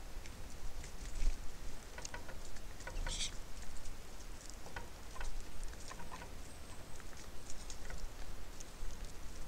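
Light, irregular tapping and clicking at a bird feeder: birds pecking and picking at seed on the feeder. One short, high chirp-like sound about three seconds in.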